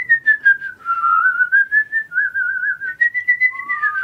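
A person whistling a wandering tune. The notes glide down and back up, break into a fast warbling trill midway, then hold higher before sliding down near the end.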